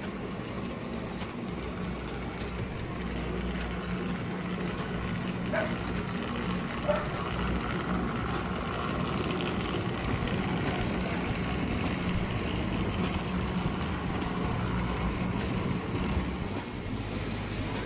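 Prewar Lionel 225E O gauge toy steam locomotive and its cars running on three-rail tubular track: a steady motor hum and wheel rumble, with light clicks at a regular rhythm.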